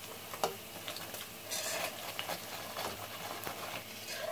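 Hot oil sizzling in a wok as deep-fried breaded bread pockets are lifted out on a perforated steel skimmer, with scattered crackles. A louder burst of sizzling comes about a second and a half in.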